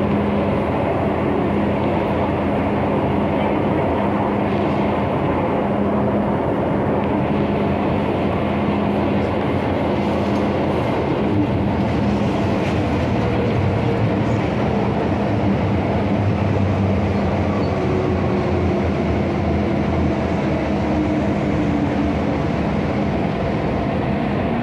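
MTR M-Train electric multiple unit running between stations, heard from inside the passenger car: a steady rumble of wheels and running gear with a constant low hum.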